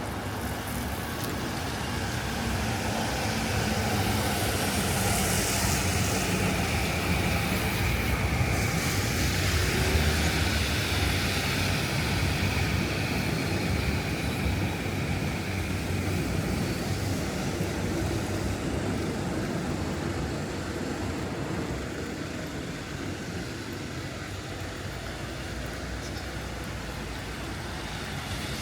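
Road traffic on a rain-wet city street, a steady rumble and tyre noise that swells as vehicles pass, loudest about ten seconds in, then eases off.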